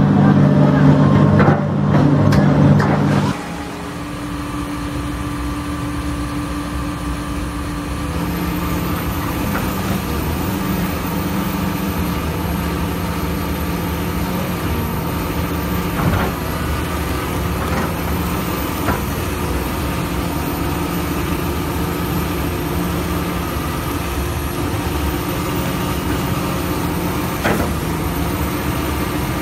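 Heavy diesel engines running loud for the first three seconds, then a sudden drop to the steadier diesel hum of a Caterpillar 320E excavator, with a few short knocks.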